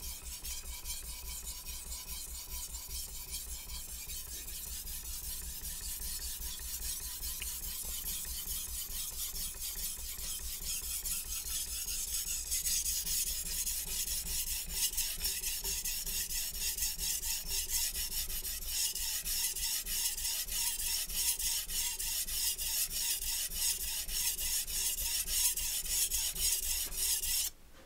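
Shun chef knife blade scraped back and forth on a wet polishing whetstone in rapid strokes, a continuous rasp that stops suddenly near the end. It is the final sharpening pass on the stone before stropping.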